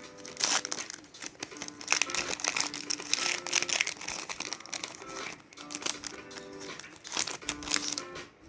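Foil wrappers of mini Pokémon card booster packs crinkling and being torn open, in quick irregular crackles, over background music.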